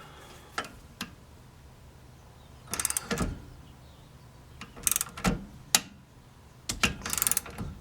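Old click-type torque wrench ratcheting in short bursts of quick clicks, with a few single clicks between, as a lug nut is turned over stacked washers to draw a new wheel stud into the hub.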